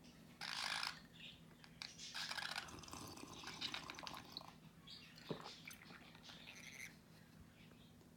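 Wet slurping and gargling sounds in short hissy bursts, mixed with a budgerigar's soft chirps.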